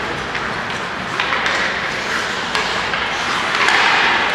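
Ice hockey play in an indoor rink: scattered sharp clicks and taps of sticks on the puck and ice over a steady haze of skating and rink noise.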